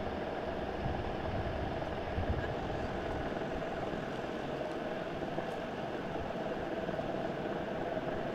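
A vehicle engine idling steadily, a low rumble with a steady hum over it.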